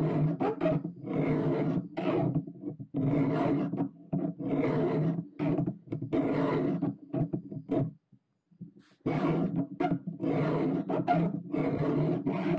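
A chainsaw file is drawn by hand through the teeth of a chain clamped in a filing jig, making rasping strokes of under a second each, about one a second, with a short pause about eight seconds in. The file is somewhat blunt, so each tooth takes extra strokes.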